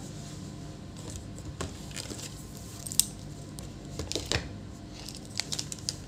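Scattered sharp clicks and taps from handling a digital multimeter and its test probes on the workbench, the sharpest about three seconds in, over a faint steady low hum.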